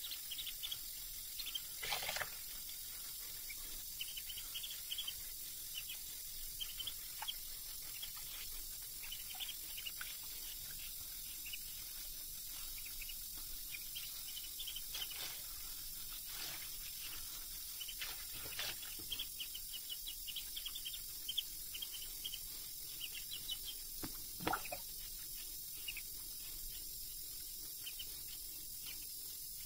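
A duckling peeping over and over in short high chirps, with a thin stream of tap water running into shallow sink water and a few louder splashes as a hand washes the bird.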